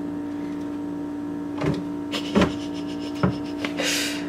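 A steady electrical hum from an appliance motor, under three knocks and scrapes on a wooden cupboard as a cat moves about inside it, the loudest about halfway through, then a short rustle near the end.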